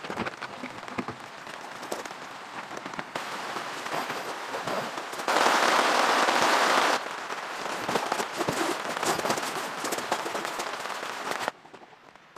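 Rain pattering on a tent tarp: many sharp drop taps over a steady hiss. About five seconds in, a louder, denser rush of rain lasts a second and a half, and near the end the sound suddenly drops much quieter.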